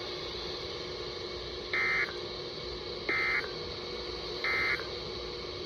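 Three short, identical bursts of Emergency Alert System digital data tones, about 1.3 seconds apart, over the steady hiss of a NOAA Weather Radio receiver. This is the end-of-message signal that closes the severe thunderstorm warning broadcast.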